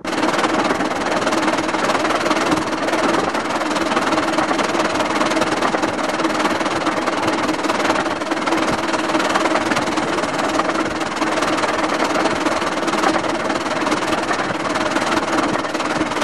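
Steam locomotive Wroxham Broad of the 15-inch-gauge Bure Valley Railway running along the line, heard close up from the footplate: a loud, steady running noise with a faint steady hum under it.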